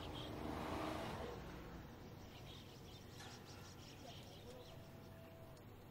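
Faint outdoor ambience with chirping calls recurring high up. A louder swell of distant pitched sound comes in the first second, and a single click about three seconds in.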